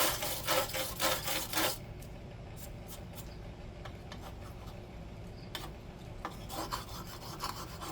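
A hand tool scraping caked road grime off a motorcycle tail-light base in quick back-and-forth strokes, with a pause and a few light clicks before the scraping resumes more lightly near the end.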